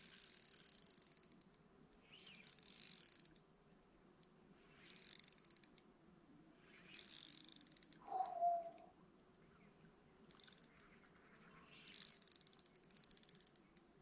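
Spinning reel being cranked in short bursts of rapid clicking, about every two seconds, as the rod is pumped against a heavy fish that is resisting hard. A brief pitched sound comes about eight seconds in, and faint chirps sound between the bursts.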